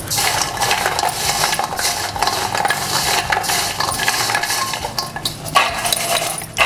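A hand tossing crisp fried maida biscuits in a steel bowl: a continuous rattle and clatter of the hard pieces knocking against each other and against the metal.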